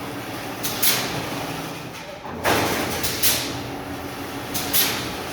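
Fully automatic chain-link fence weaving machine running, a steady mechanical clatter with a louder noisy stroke recurring every second or two as it works the wire mesh.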